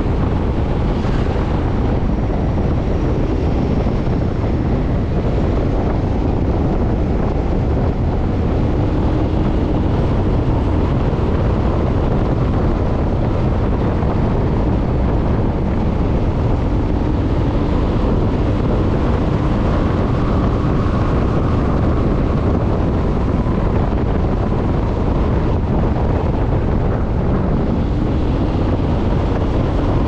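Motorcycle cruising steadily, with wind rushing over the microphone and the engine and tyre noise running beneath it.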